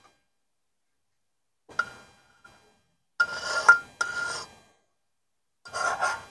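Large metal spoon scraping hot caramel out of a stainless steel saucepan in several short strokes, with quiet gaps between them.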